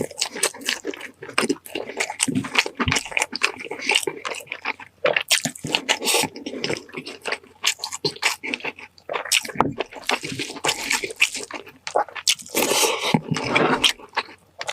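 Close-miked wet eating sounds: food being chewed and squished in the mouth, in a dense run of irregular smacks and clicks.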